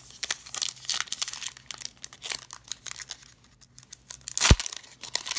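Foil trading-card pack crinkling in the hands and being torn open, with one sharp thump about four and a half seconds in.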